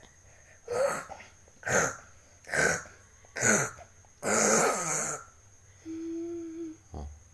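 A young child faking snores: five rasping snore sounds about a second apart, the last one drawn out, then a short hum.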